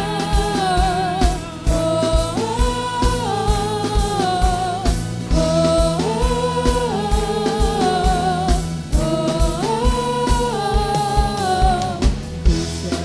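Gospel praise music without lyrics: a steady drum beat of about two beats a second under a repeated melody phrase with held, wavering notes.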